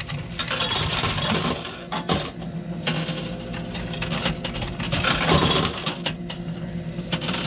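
Quarters clinking and clattering in a coin pusher arcade machine as coins drop onto the playfield and are shoved along by the pusher shelf, with many small clicks over a steady low hum.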